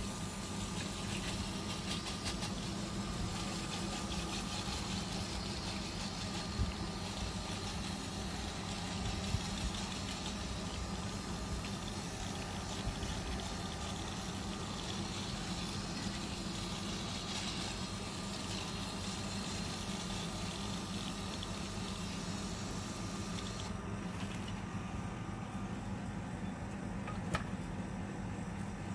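Pressure washer running: a steady motor hum under the hiss of water spray as a dirty mower deck and engine are washed down. The spray hiss thins near the end while the motor keeps humming.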